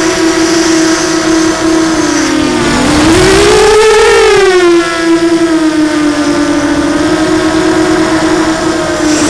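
Blackout Mini H quadcopter's brushless motors and propellers whining steadily, heard from the onboard camera. The pitch dips briefly about two and a half seconds in, then rises and gets louder for a second or two as the motors speed up, before settling back to a steady whine.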